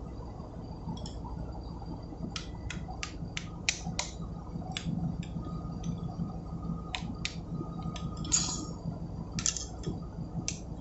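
A flat screwdriver clicks and scrapes against a sheet-metal locking plate as it bends the plate's tabs up against two bolt heads: about a dozen short, sharp metallic clicks at uneven spacing, over a steady low hum.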